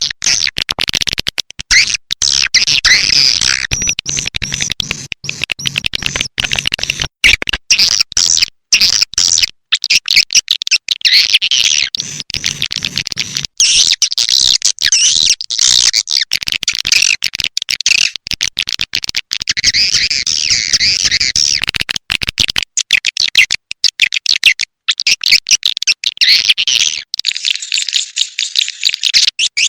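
Swiftlet lure call: a dense, rapid chatter of swiftlet twitters and chirps, played as a looping track to draw edible-nest swiftlets into a bird house. The twittering runs on with many short breaks, and its lower undertone drops away near the end.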